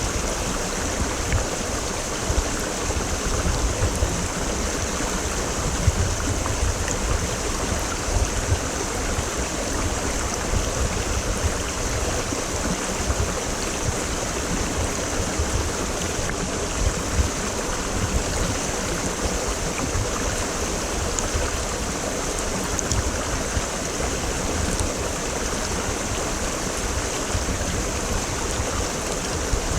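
Mountain stream (quebrada) rushing and babbling steadily over rocks, a continuous flow with a low rumble and small irregular splashes.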